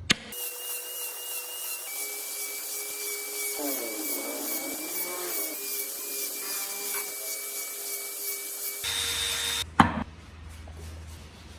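Electric power tool working wood: a steady high whine over a rough rasping hiss as the bit or abrasive cuts into the wood. The sound shifts abruptly about nine seconds in, with a sharp click just before ten seconds.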